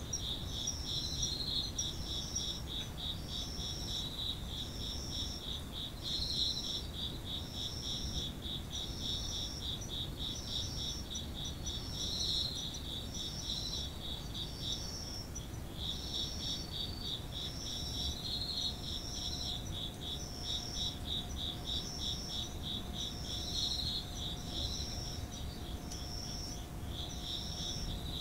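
Japanese autumn insects singing in chorus. One keeps up a fast, pulsing trill that breaks off briefly about halfway through, while a higher-pitched one chirps about once a second.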